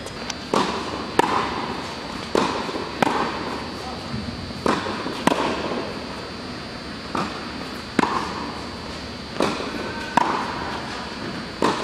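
A tennis ball struck by racquets and bouncing on a hard court during a baseline rally, a sharp pop every second or so, often in pairs, each ringing with the echo of a large indoor tennis hall.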